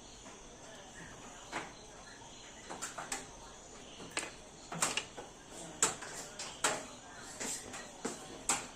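Irregular sharp clicks and knocks, about a dozen spread over several seconds, as the parts of a mixer grinder are handled during the repair; the motor is not running.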